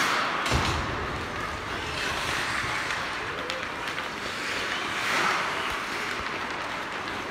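Ice hockey skates scraping and carving across rink ice, with a thump about half a second in and a few light clicks of sticks and puck.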